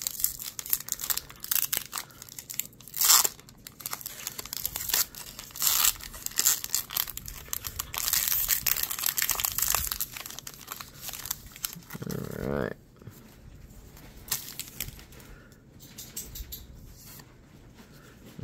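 Foil wrapper of a Pokémon booster pack being torn open and crinkled: an irregular run of tearing and crackling through most of the first ten seconds or so. It then goes much quieter, with only a few faint light ticks.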